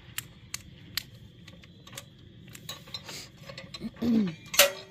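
Hardware being handled while a tray is taken off a display stand: scattered light metallic clicks and rattles about every half second, then a short squeaky sound and a loud clack near the end.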